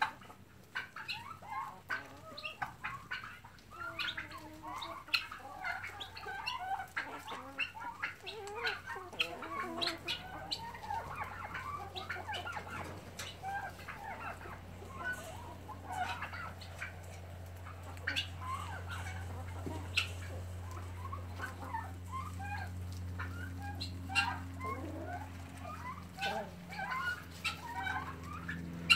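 A flock of chickens clucking and calling in many short overlapping notes while feeding, with scattered sharp clicks. A steady low hum comes in underneath from about ten seconds in.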